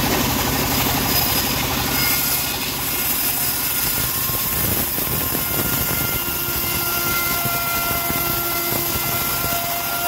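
Home-built bandsaw mill running steadily, a continuous loud machine noise, while a teak plank is fed along its table; a thin whine comes in about six seconds in.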